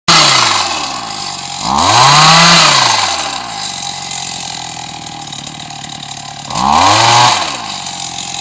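ZEG olive harvesting machine's small engine running, revved up twice, each rise lasting about a second, once around two seconds in and again near the end, and dropping back to a steadier lower speed in between.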